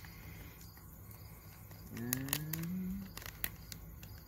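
A low, drawn-out call about a second long that rises steadily in pitch, about halfway in, with a few light clicks around it.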